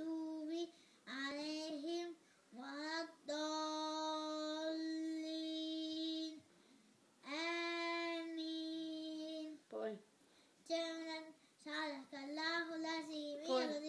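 A boy chanting Quran recitation in long melodic phrases, with short pauses between them and two notes held steady for two to three seconds near the middle.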